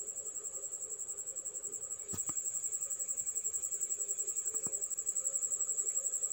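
Insect chirping: a steady, high-pitched trill pulsing about ten times a second, with two faint clicks about two and four and a half seconds in.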